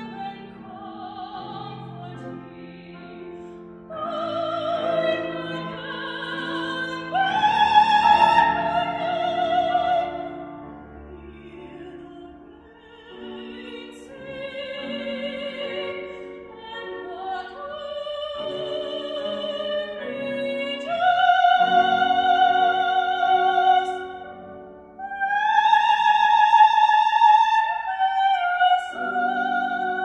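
A woman singing a classical art song in operatic style, accompanied by a grand piano. Her voice swells to long, loud high notes with vibrato in the second half.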